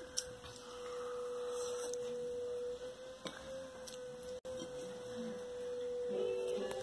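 A steady single-pitched tone, like a held hum. It drops out for an instant about halfway through, and a second, lower tone joins it near the end.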